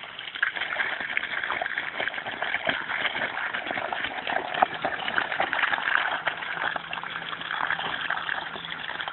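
Water from a garden hose running steadily and splattering into a muddy puddle, with irregular small splashes as a German shepherd plays in the stream.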